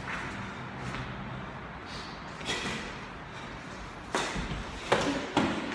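Four sharp thuds of punches and kicks landing on padded taekwondo chest protectors, the last three in quick succession near the end.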